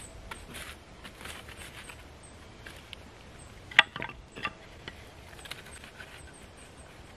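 Light scraping and rustling of charred wood and ash being handled in a stone fire pit as it is cleared for a new fire, with one sharp knock a little past halfway and a smaller one just after.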